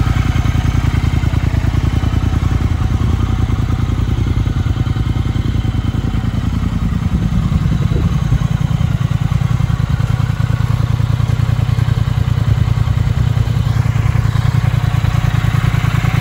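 Triumph Speed Twin's 1200 cc parallel-twin engine idling steadily, with an even, rapid exhaust pulse. It grows a little fuller about halfway through.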